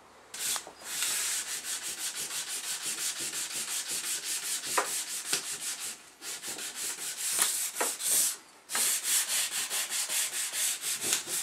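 Sandpaper rubbed by hand back and forth over stripped walnut, in quick scraping strokes about four a second, with two brief pauses about six and eight and a half seconds in.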